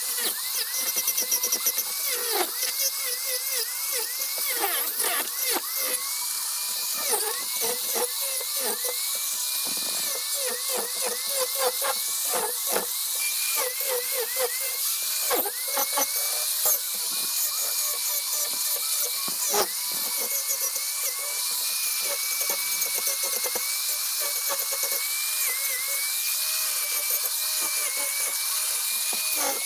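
Angle grinder fitted with a chainsaw-chain carving disc, running and cutting into a walnut branch. A steady high motor whine dips briefly in pitch each time the disc bites into the wood, over a constant hiss of cutting, with many short knocks. The cuts come thickest in the first half; near the end the whine runs more evenly.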